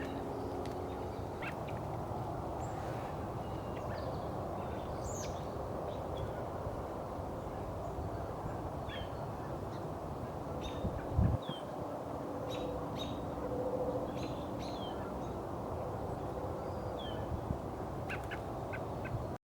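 Small songbirds calling in scattered short, sharp chirps and quick falling notes over a steady low background hum, with one low thump about halfway through.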